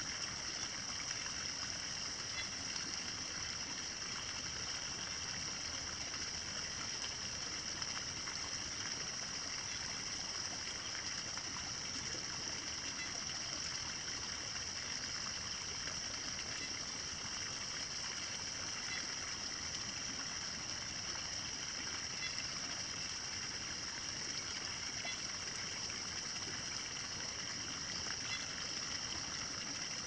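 Steady morning countryside ambience: a trickle of running water under a continuous high-pitched drone, with faint chirps here and there.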